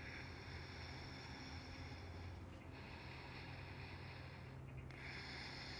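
Slow Ujjayi breathing, each breath drawn through a slightly closed throat as a soft hiss. There are three breaths of about two seconds each with short pauses between them, over a faint steady low hum.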